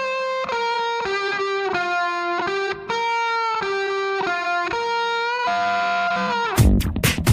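Background music: a slow lead melody on electric guitar, long held notes changing about every half second with small bends between them. About six and a half seconds in, a loud full beat with drums comes in.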